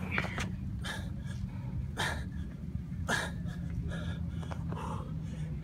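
A man breathing hard and loud from exertion, with forceful breaths about once a second.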